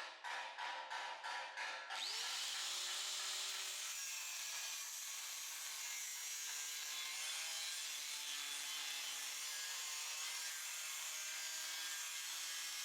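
Short rhythmic strokes, about two or three a second, for the first two seconds. Then an electric power tool spins up with a quick rising whine and runs steadily with a hissing, grinding noise, working the steel of an old bumper bar.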